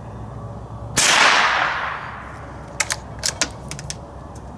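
A bolt-action .22 Long Rifle rifle, a Remington Model 5, firing one shot about a second in, the report trailing off in an echo. A couple of seconds later comes a quick run of sharp metallic clicks as the bolt is worked to eject the case and chamber the next round.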